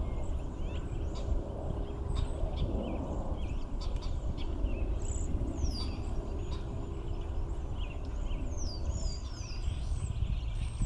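High, thin calls from a feeding flock of cedar waxwings, short falling whistles and chirps, growing busier in the second half, over a steady low rumble.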